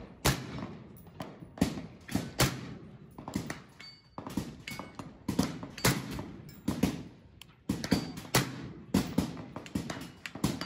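Gunshots on an outdoor firing line: a suppressed SIG Sauer rifle fired round after round, mixed with other guns going off nearby, about one or two sharp reports a second with short echoing tails.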